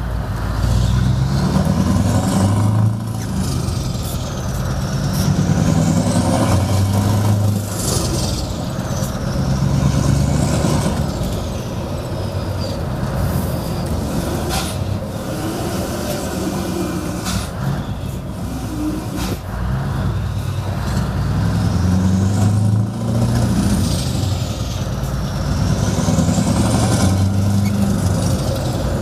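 Scania 164L 580 16-litre V8 truck engine with an open exhaust, heard from inside the cab while driving: the deep engine note climbs under acceleration and falls away briefly at several gear changes of its OptiCruise gearbox.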